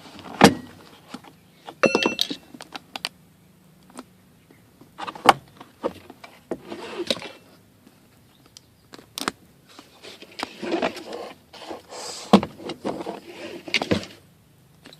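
Plastic interior trim of a minivan being pried loose and handled: scattered clicks and knocks with rustling in between, and a brief squeak about two seconds in.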